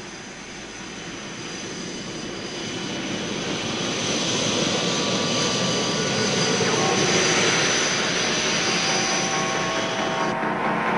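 Jet fighter's engines running: a broad rushing noise with a steady high whine, swelling over the first four seconds and then holding, with an abrupt change in tone near the end.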